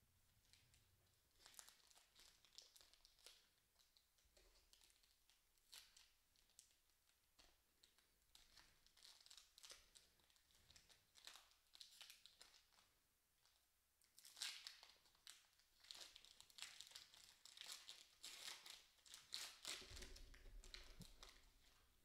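Faint crinkling and tearing of a foil Panini Elite football card pack being pulled open by hand. The crackling rustles grow louder and more frequent in the second half.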